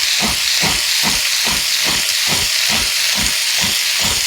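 Fresh coconut being grated by hand on a scraper blade, a steady run of scraping strokes a little over two a second, over a constant hiss.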